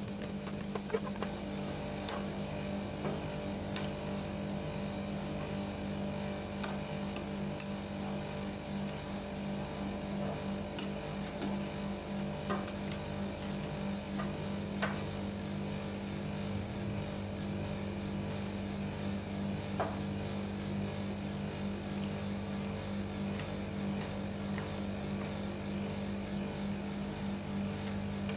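Steady electrical hum of a rolled-ice-cream cold plate's refrigeration unit, with a few sharp taps and scrapes of metal spatulas on the steel plate as the frozen mixture is chopped and spread.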